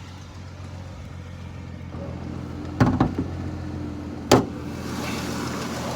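Dodge Durango's 3.6 L Pentastar V6 idling steadily with the engine's known top-end tick, which the owner hears from the driver's side and treats as a failing lifter. Two sharp knocks stand out, about three seconds in and again about a second and a half later.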